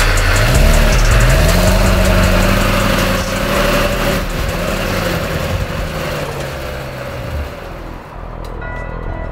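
Truck engine revved twice in quick succession, held at raised revs for a few seconds, then winding down and fading about seven and a half seconds in.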